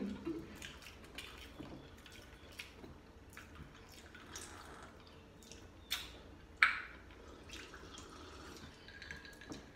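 Quiet wet mouth sounds of eating and drinking: soft smacks and clicks, with two sharper clicks about six seconds in.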